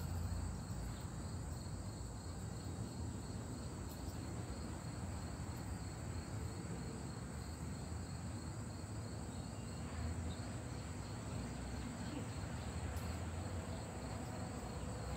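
Insects calling in a steady, unbroken high-pitched drone, over a low background rumble.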